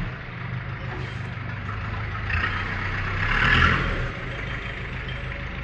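A steady low machine hum, like an engine or motor running, with a louder rush of hiss about two and a half to four seconds in.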